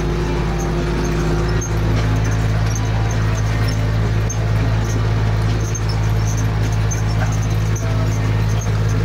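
Zetor 5211 tractor's three-cylinder diesel engine running steadily under ploughing load, heard from inside the cab, its note shifting slightly about a second and a half in.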